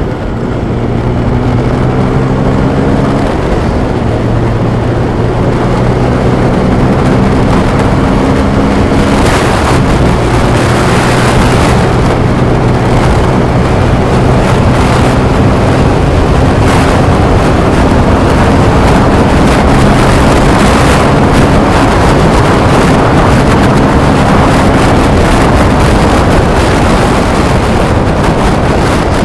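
Motorcycle engine running while riding, with heavy wind rush on a helmet-mounted microphone. The engine note holds steady for a few seconds at a time, then shifts or fades under the wind.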